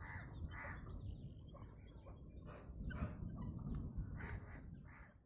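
Crows cawing over and over in short harsh calls, with thin chirps from smaller birds above them, over a low steady rumble.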